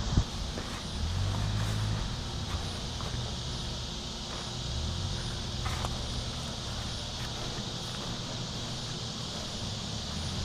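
Outdoor wind noise: gusts rumbling on the microphone over a steady high hiss, with a few faint light knocks.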